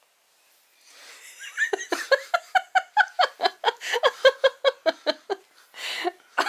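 Adult laughing in a long run of quick, even ha-ha pulses, starting about two seconds in, with a breath drawn in near the end.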